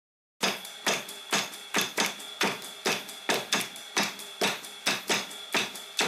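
Background music intro: sharp percussive clicks at an even beat, about two a second, over a faint steady high tone.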